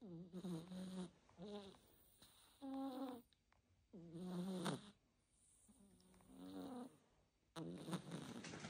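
Domestic cat snoring: a short, pitched snore on each breath, about every second and a half, some breaths louder than others.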